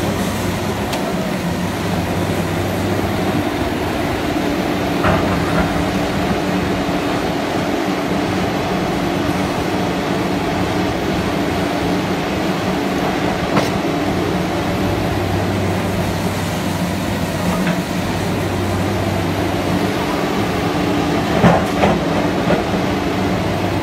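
MST M300LC crawler excavator's diesel engine running steadily under load while it digs, with a steady hum from the engine and hydraulics. Sharp knocks of rock against the steel bucket come a few times, in a cluster near the end.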